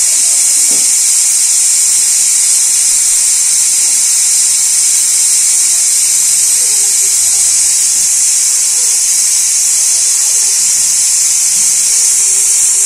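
Aluminium stovetop pressure cooker hissing steadily as steam escapes at its vent weight: the cooker is up to pressure and nearing its whistle.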